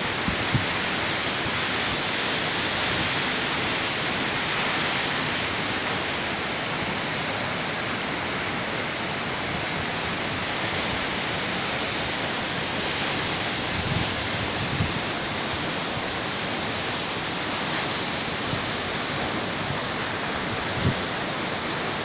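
Tall mountain waterfall plunging down a rock cliff: a steady, even rush of falling water. There are a few brief low bumps about two-thirds of the way in and near the end.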